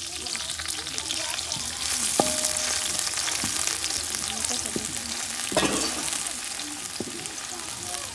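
Chopped onions sizzling and crackling as they fry in hot oil in a pot, stirred with a cooking stick. A few knocks of the stick against the pot come through, one about two seconds in with a brief ring.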